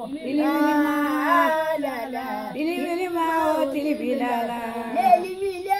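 A female voice singing with no instruments, in long held notes that slide between pitches.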